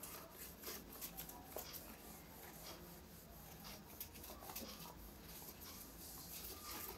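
Cloth wiping a whiteboard: faint, scattered rubbing and brushing strokes across the board.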